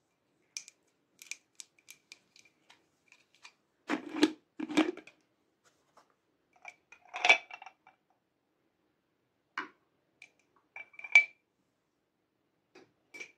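Glass nail polish bottles and a glass jar with a plastic lid being handled: light clicks and taps, two duller knocks about four to five seconds in, and sharper glass clinks with a short ring about seven and eleven seconds in.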